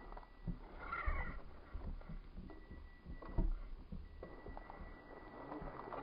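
RC rock crawler's electric motor and drivetrain whining thinly as it crawls over snow, the whine dropping in and out. There is a brief wavering squeal about a second in, and scattered low thumps, the strongest a little past three seconds.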